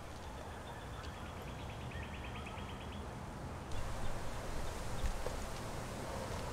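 Outdoor ambience: a steady low rumble with a rapid, high-pitched chirping trill of about nine notes a second, from about one to three seconds in. A little before four seconds in the background switches abruptly to a louder, brighter hiss.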